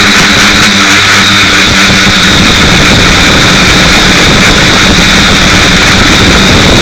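Quadcopter's four brushless motors and propellers running steadily in a hover, picked up loud and close by the onboard keychain camera's microphone: an even high whine with a low buzz beneath.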